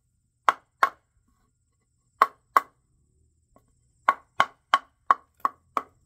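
Hammer striking a wooden 2x4 laid across a tractor's front-wheel hub, driving a new ring down into place. Two pairs of sharp blows, then six quick blows at about three a second.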